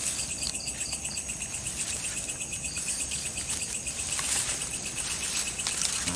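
Night insects chirping in a steady chorus, a high-pitched pulsing about five times a second, with a few faint sharp clicks in the second half.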